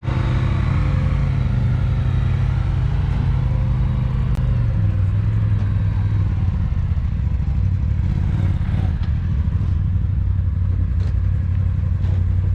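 Side-by-side UTV engine running steadily at low speed, its pitch dropping a step about five seconds in, with a few light clicks and rattles.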